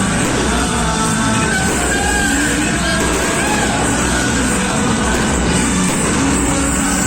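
Loud music with singing, steady in level, with no separate firework bangs standing out.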